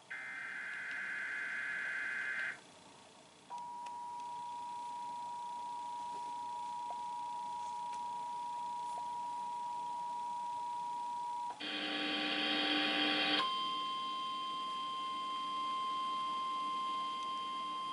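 Emergency Alert System test tones from a TV broadcast. The last SAME header data burst warbles for about two and a half seconds. After a short gap the steady two-tone attention signal holds for about eight seconds, then a brief harsh burst gives way to a single steady tone.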